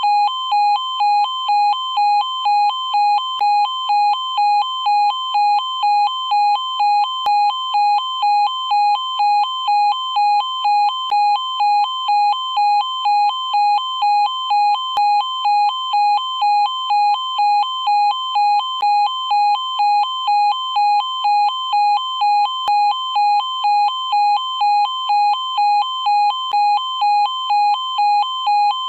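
E2S A105N electronic alarm sounder giving a continuous two-tone alarm, switching back and forth between two pitches about one and a half times a second at a steady loud level.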